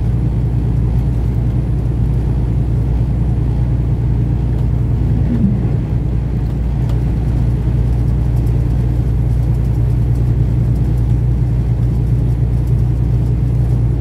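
Semi truck driving at steady speed: the Kenworth's diesel engine drone and road rumble, even and unchanging throughout.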